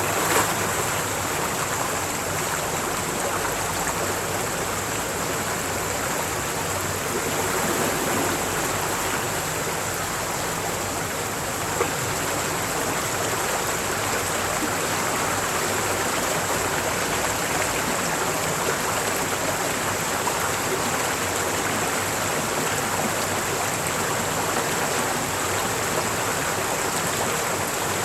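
Mountain valley stream rushing steadily, a constant roar of flowing water.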